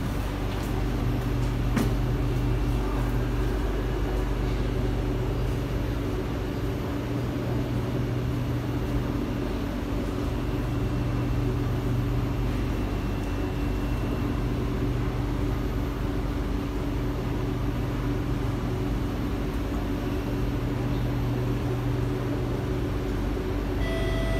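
Steady hum of a Singapore MRT C751B train car standing at a station with its doors open, with a single click about two seconds in. Just before the end the door-closing chime begins, the signal that the doors are about to shut.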